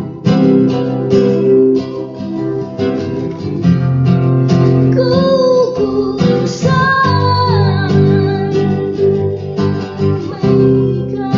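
Music: acoustic guitar strummed in a steady rhythm, with a higher wavering melody line over it from about five to eight seconds in.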